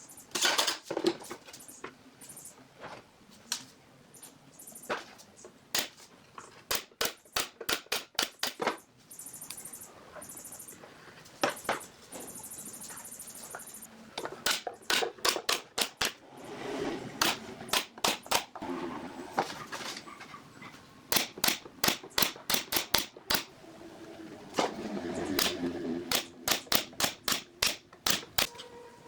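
Woodworking work noise: runs of sharp taps and knocks, several a second, with pauses between the runs and a brief high hiss twice in the first half.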